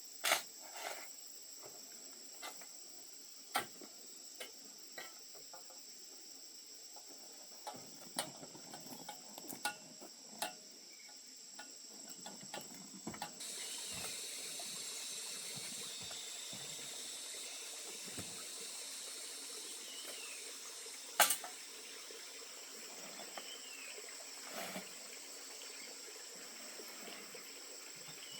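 Insects, crickets among them, trilling steadily at a high pitch, with scattered clicks and knocks, one sharp knock about two thirds of the way through. From about halfway in, a steady hiss of running or pouring water joins.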